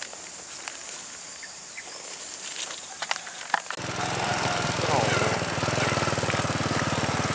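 Faint, steady insect calls with a few clicks. About halfway in, a small motorcycle engine cuts in abruptly and runs steadily with a fast, even pulse as the bike is ridden along a muddy dirt track.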